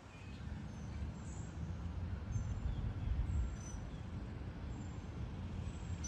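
A steady low rumble, with a few faint, short, high bird chirps scattered through it.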